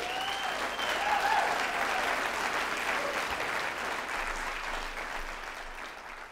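Large audience applauding, with a few whoops over the clapping in the first second or so; the applause swells, then slowly tapers off.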